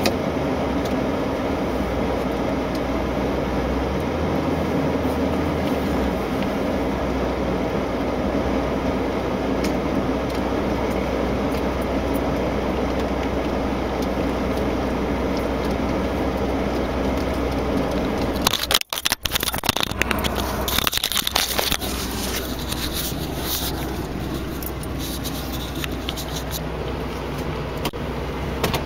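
Steady in-cab noise of a pickup truck's engine and heater fan running as it drives through snow. About 19 s in the sound cuts out for a moment, followed by irregular crackling and knocking.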